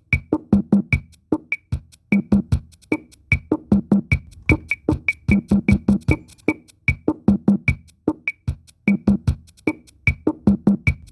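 Music made of a fast, steady percussion rhythm: runs of sharp strikes, several a second, separated by short breaks.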